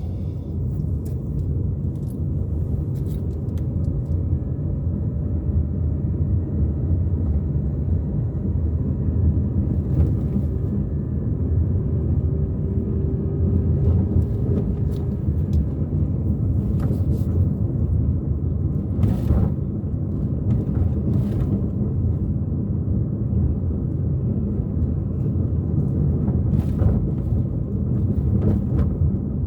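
Car driving along at a steady pace: continuous low engine and tyre rumble, with a few faint clicks and knocks scattered through it.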